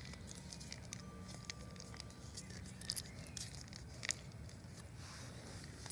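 Faint handling sounds of strawberry jam being spread on a burger bun, with a few light clicks, over a low steady background rumble.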